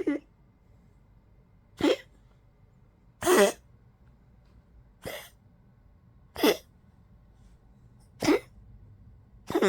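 Old poodle coughing over and over from tracheal collapse: about seven short coughs, one every second and a half or so, each dropping in pitch. The one a little past three seconds is the loudest and longest.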